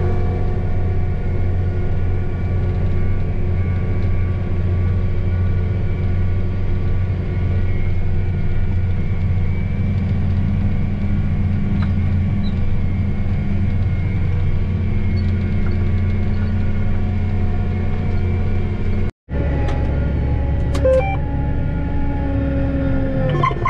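John Deere 8530 tractor's six-cylinder diesel engine running steadily under load while pulling a vertical tillage tool, a steady drone heard from inside the cab. It cuts out for an instant about nineteen seconds in, then carries on.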